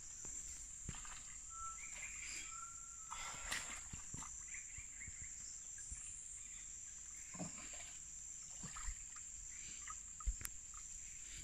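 Steady high-pitched drone of forest insects, with a thin whistled call about two seconds in and a few faint knocks and rustles of someone moving through brush and mud at the water's edge.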